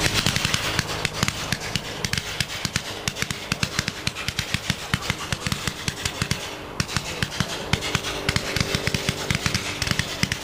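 Fiery Fanfare 200-shot firework cake firing in a fast, unbroken stream of sharp pops, many a second.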